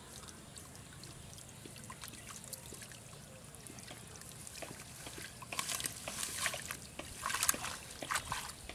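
Shallow ditch water splashing and trickling as a woven bamboo fish trap is handled and lifted out of it. Faint light splashes at first, then louder, choppy splashing from about halfway through.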